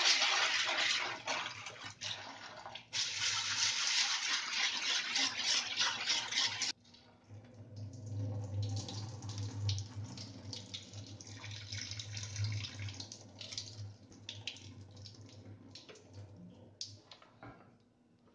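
Kitchen tap running into a steel pot of chickpeas as they are rubbed and rinsed by hand, water splashing; it stops suddenly about seven seconds in. After that, quieter trickling and splashing as the rinse water is poured off into a steel sink, over a low steady hum.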